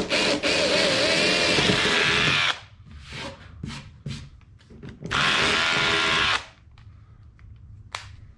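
Cordless impact driver fitted with a 1/4-inch drill bit, whining as it bores through plywood. It runs for about two seconds at the start, stops, then runs again briefly about five seconds in.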